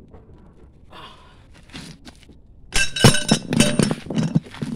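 Steel tools and parts clanking and clinking against each other with a metallic ring: a quick run of sharp knocks starts about three seconds in, after a quieter stretch.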